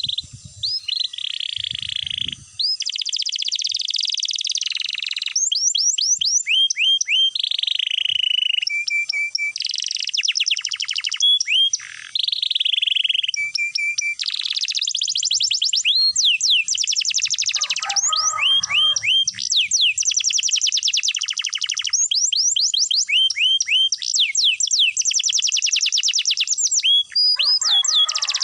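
Domestic canary singing a continuous song of long rolls: fast trills and runs of rapidly repeated high whistled notes. A lower, rougher chattering phrase breaks in twice, about eighteen seconds in and near the end.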